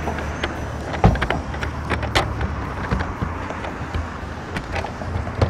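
Plastic third brake light housing knocking and clicking against the van's roof as it is pressed into its slot by hand. There are a few sharp knocks, the loudest about a second in, over a steady low background rumble.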